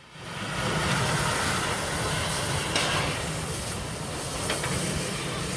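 Class 01 steam locomotive 01 1066 moving slowly: a steady hiss of steam over the low rumble of the engine and its running gear, with a faint puff about three seconds in.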